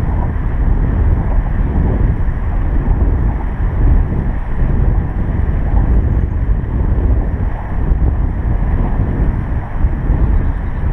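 Wind buffeting the microphone: a loud, steady low rumble that rises and falls slightly.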